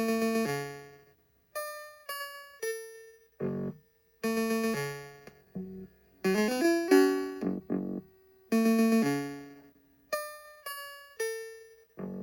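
Commodore 64 SID chip music: a chiptune of separate synthesized notes, each struck sharply and fading away, played in short phrases with brief silent gaps between them.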